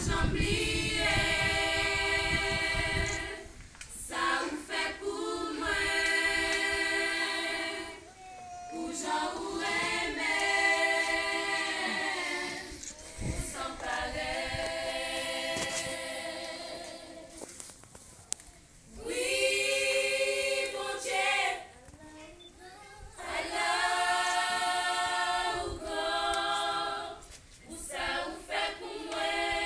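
A small group of women singing together a cappella, without instruments, in held phrases of about three to four seconds separated by short pauses.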